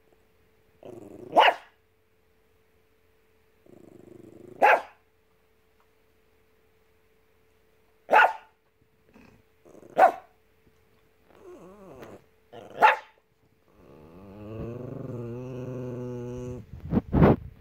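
Small dog barking single sharp barks every few seconds, some led in by a short growl, then a long low grumbling growl and a quick double bark near the end: demand barking for a cookie.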